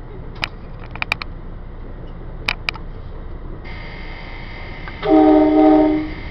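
Train horn sounding one loud blast of about a second, a chord of several notes, heard from inside the leading cab car over the running train's rolling noise. A steady high whine starts a little before the blast and carries on after it.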